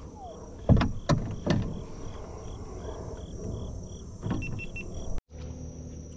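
Three loud knocks in quick succession about a second in, and another near four seconds, from handling a just-caught shellcracker in a kayak. Under them, a steady high insect chirp repeats about three times a second. The sound cuts off abruptly near the end.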